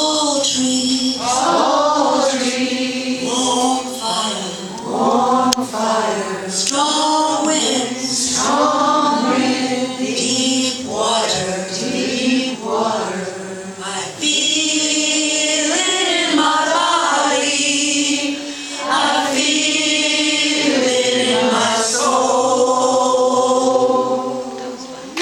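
Unaccompanied chant-like singing invoking the four elements, led by a woman's voice at the microphone with several voices joining in on long held notes. It dies away near the end.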